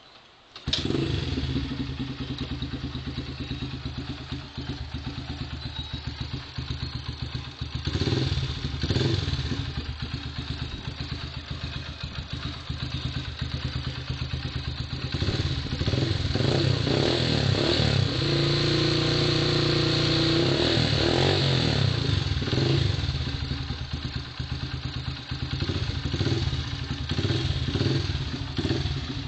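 Yamaha YBR Factor motorcycle's single-cylinder four-stroke engine starts under a second in and settles into idle, with a couple of quick throttle blips. Later the engine is revved up and held at higher revs for a few seconds, drops back, and is blipped repeatedly near the end.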